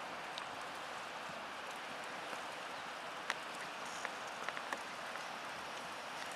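Steady outdoor hiss with a few faint, irregular clicks and taps, about three to five seconds in, from a pony trotting in harness and pulling a light two-wheeled cart over sand.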